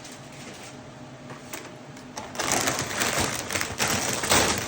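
Strawberry banana Cheerios poured onto a pile of dry snack mix: a rattling patter of many small pieces that grows louder about two seconds in.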